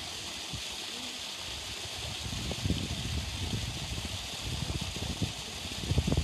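Steady hiss of running water. From about two seconds in, irregular low rumbling joins it and grows louder near the end.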